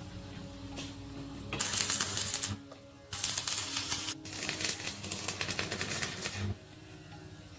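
Three bursts of dense, rapid rattling or scraping noise, each one to two seconds long, over faint steady background music.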